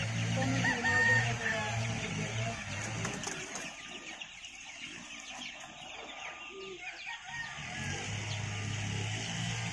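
A flock of gamefowl chickens clucking, with a rooster crowing, busiest in the first few seconds. A steady low hum runs under it at the start and comes back near the end.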